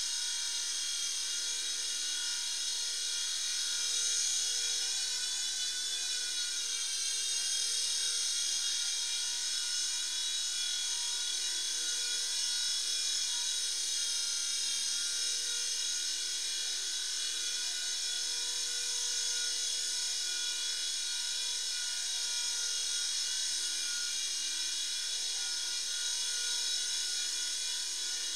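Small indoor remote-control helicopter's electric motor and rotors whining steadily in flight, the pitch dipping briefly about six seconds in.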